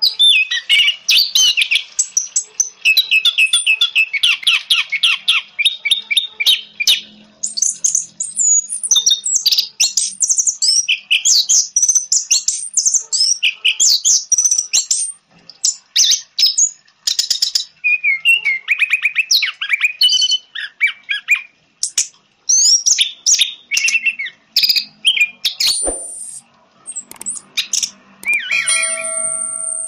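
Orange-headed thrush (anis merah) singing a rapid, varied song of whistles and trills in near-continuous phrases. Near the end comes a sharp click, then a short chime of steady tones.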